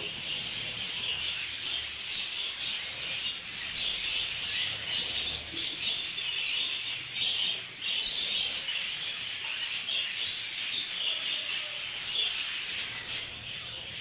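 A flock of budgerigars chattering steadily, many birds at once.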